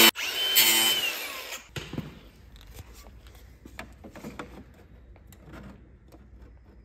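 Angle grinder cutting through the edge of a carbon grille, a high whine over harsh grinding noise, stopping after under two seconds. Then only faint taps and rustling as the trimmed grille is handled.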